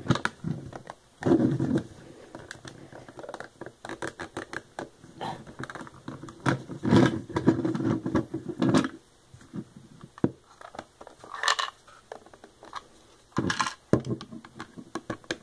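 Plastic Lego bricks being handled: a run of small clicks, taps and scrapes as a Technic pin is pushed into a Lego box and the box is turned over. Louder rubbing comes about a second in and again in the middle.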